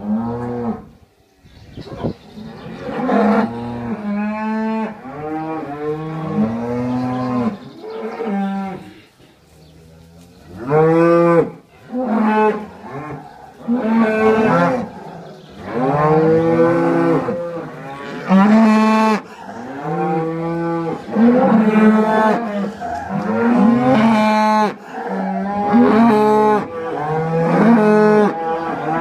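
Cattle mooing over and over, one call after another almost without a break from a few seconds in, several voices sometimes overlapping.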